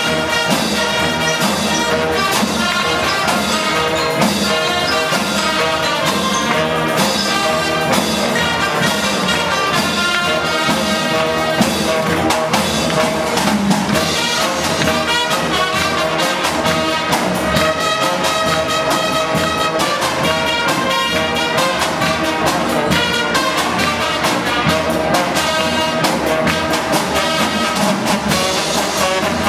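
Brass band of trumpets, baritone horns and sousaphones playing a tune together, with a steady beat.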